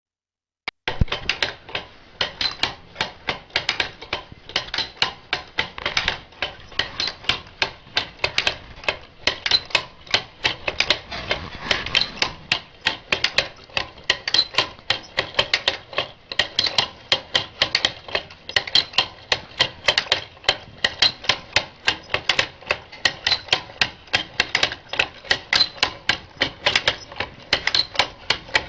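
Hand-cranked wooden automaton mechanism clacking as the crank is turned: a rapid, even run of wooden clicks and knocks from its cams and levers, starting about a second in.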